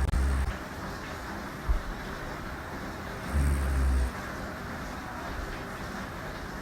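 A woman snoring in her sleep: deep, rumbling snores about every three and a half seconds, one ending just after the start and another about three and a half seconds in, over a steady hiss. A short thump about two seconds in.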